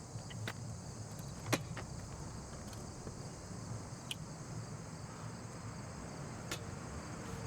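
Night ambience of crickets chirping steadily, over a low rumble of distant traffic, with a few sharp clicks scattered through it, the loudest about one and a half seconds in.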